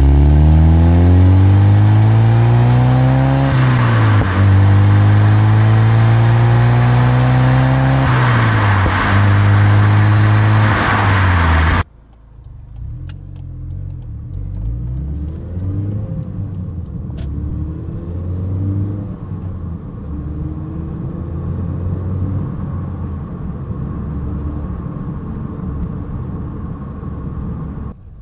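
Mazda MX-5 exhaust through a BBR aftermarket back box, accelerating hard through the gears: the engine note climbs, drops back at two upshifts, and climbs again. About twelve seconds in it cuts abruptly to a much quieter engine note at lower revs that rises and falls gently.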